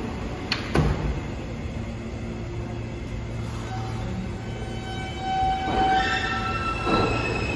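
New York City subway train coming into the station: a steady rumble with a sharp knock about a second in. Several steady high tones join about halfway through, and the noise grows louder near the end as the train nears the platform.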